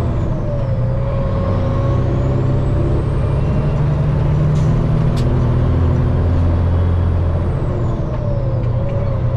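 Diesel engine of a Peterbilt semi truck heard from inside the cab, pulling hard as the truck accelerates through the gears. Its note and a high whistle dip and recover about a second in and again near the end as gears are changed.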